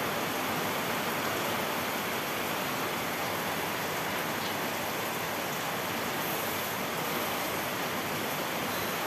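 Heavy rain pouring down, a steady even rush of noise with no breaks.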